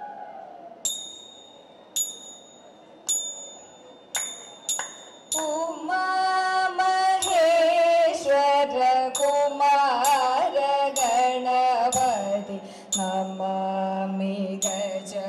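Small hand cymbals struck about once a second, each stroke leaving a high ring, then quicker strokes around four seconds in. After that, women's voices start a Thiruvathira song with a wavering, ornamented melody, and the cymbal beats continue under the singing.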